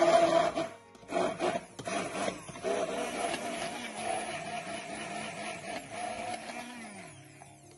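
Hand-held immersion blender motor whining as its blade purées cooked chickpeas with cooking water. It is loud for the first second and stops briefly, then runs on more quietly with its pitch wavering under the load, and winds down near the end.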